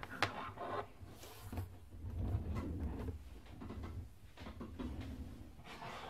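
Handling noise from a SATA data cable being moved about: light plastic clicks and rustling, with a sharper click just after the start, over a steady low hum.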